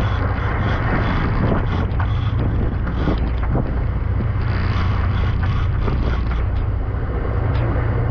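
Fishing boat's engine droning steadily underway, with wind rushing over the microphone and scattered short knocks and clicks from the deck and tackle.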